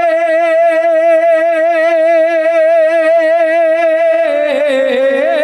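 Devotional naat singing: one long held note with a steady vibrato over a sustained lower accompanying tone, the melody dipping and moving near the end.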